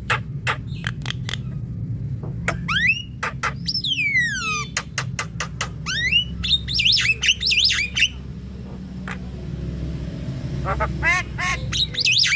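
Javan myna calling: a series of sharp clicks, then whistled notes sweeping up and down, a fast run of chattering, squawky notes, a short lull, and another burst of quick notes near the end, over a steady low hum.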